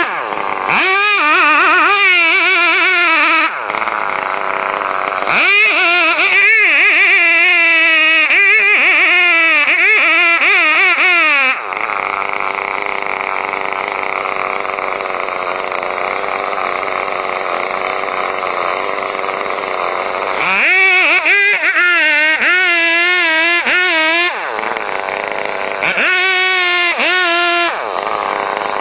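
Chainsaw cutting, the engine's pitch wavering up and down as it works under load, giving way to a steadier, rougher sound for several seconds in the middle.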